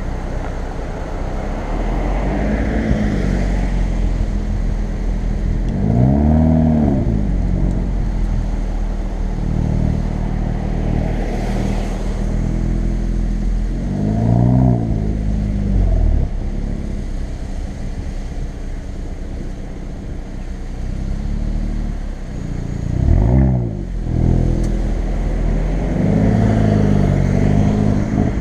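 Hyundai i30 N's 2.0-litre turbocharged four-cylinder engine and exhaust, in N mode, while driving: the revs climb and fall away several times, the clearest about a quarter, half and four-fifths of the way through, over a steady rumble of road noise.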